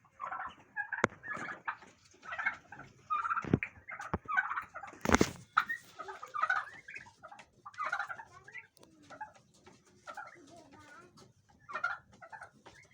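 Penned pheasants calling: a run of short, chattering calls repeating every half second to a second, with a few sharp knocks among them, the loudest about five seconds in.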